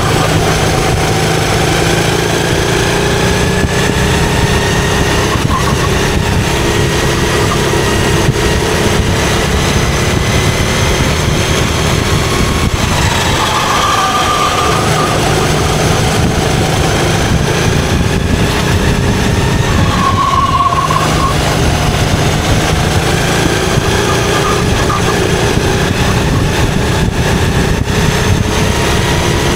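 Rental kart's engine running hard, recorded on board, its pitch dropping a couple of times as the kart slows for corners and climbing again as it accelerates out.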